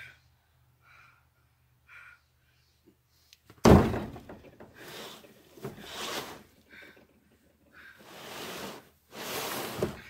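A hay bale dropped onto a pickup truck's plastic bed liner with one loud thump about four seconds in. It is then shoved and scraped across the bed in several rustling pushes.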